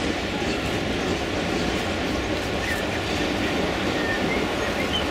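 Steady hubbub of a large, busy exhibition hall: a continuous low din of crowd and room noise, with faint scattered higher sounds.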